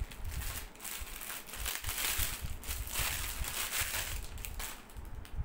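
Clear plastic packaging crinkling and rustling continuously as it is pulled off a hanging sign by hand.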